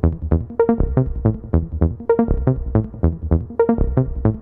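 Electronic background music with a steady beat and repeated synth notes.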